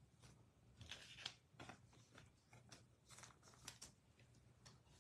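Faint rustling and soft clicks of trading cards being handled and sorted, a few small handling noises scattered through, over a faint low room hum.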